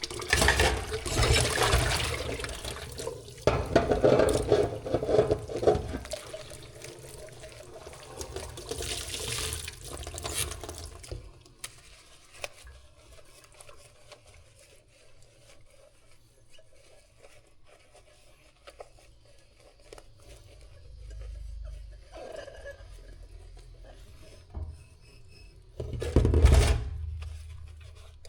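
Water running from a tap into a sink in several loud bursts, as if something is being rinsed or washed. After that it goes quieter, with light clinks of dishes or utensils, and there is one more short burst of water near the end.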